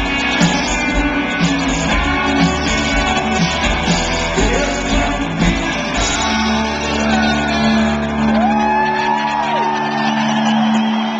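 Live rock band with drums and electric guitars at the close of a song. The drums beat steadily until about six seconds in, then stop, leaving one held chord ringing on while voices shout and whoop.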